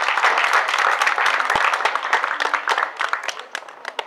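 Audience applauding, dense clapping that thins out to a few scattered claps near the end.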